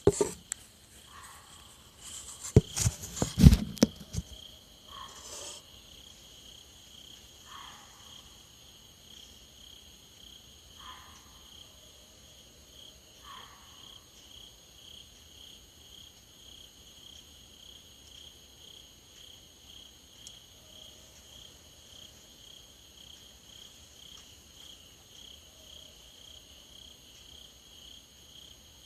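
Insects trilling in a steady, finely pulsing chorus, with a short lower call repeating every few seconds. Loud knocks and rustling in the first few seconds.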